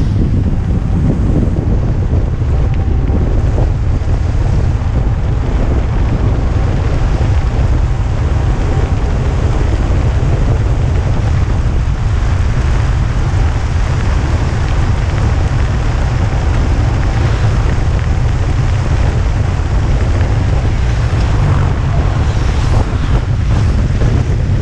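Loud, steady wind buffeting an action camera's microphone at speed on a fast kick-scooter descent, a deep rumbling rush with no breaks.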